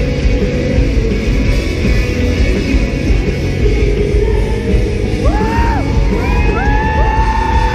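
Pop-punk band playing live and loud: distorted electric guitars, bass and drums. About five seconds in, a voice comes in over the band with long held yelled notes.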